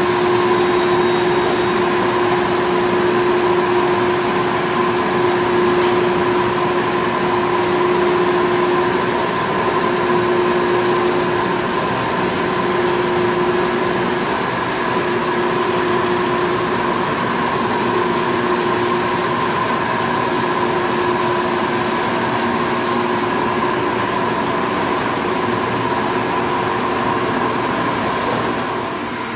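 Log-milling machinery running with a steady mechanical hum and a constant whine, its level even throughout.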